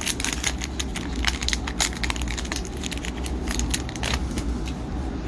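Hockey card pack wrapper crinkling and tearing open: a quick run of crackles and clicks as the next pack is opened and handled, over a steady low hum.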